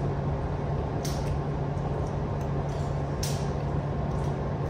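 A steady low mechanical hum fills the room. About one and three seconds in there are brief scraping rustles, as chopsticks work noodles out of a cardboard takeaway noodle box.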